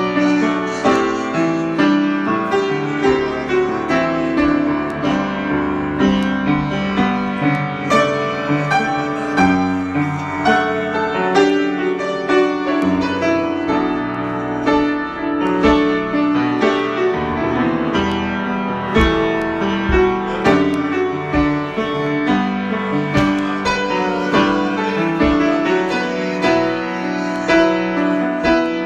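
Solo piano improvisation, played continuously with many overlapping sustained notes and frequent new chords.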